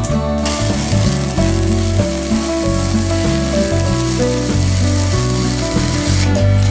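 MIG welding arc crackling steadily from a transformer welder with a MIG attachment. It starts about half a second in and stops shortly before the end, over background music.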